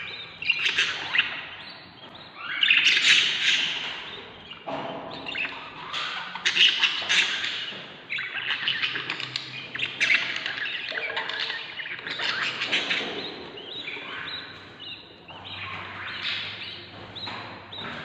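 Ten-day-old budgerigar chicks giving raspy begging calls in a nest box as an adult budgie feeds them, in repeated bursts of a second or two with short dips between.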